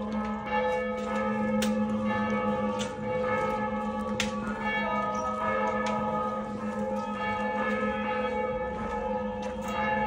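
Church bells ringing: a steady hum of several overlapping bell tones, with irregular clapper strikes on top.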